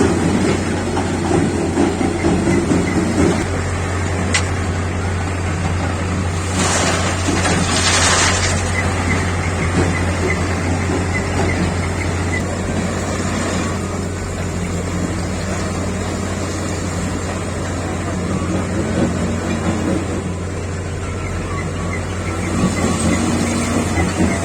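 JCB backhoe loader's diesel engine running steadily under a constant low hum, with a brief hiss lasting about two seconds, about seven seconds in.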